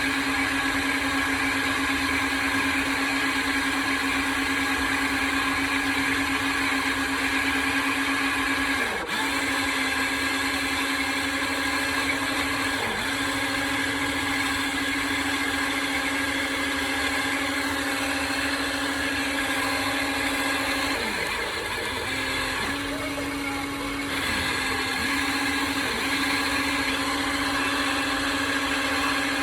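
Steady high whine of an RC excavator's electric motor. Its pitch dips briefly about six times, as the motor is loaded when the machine moves.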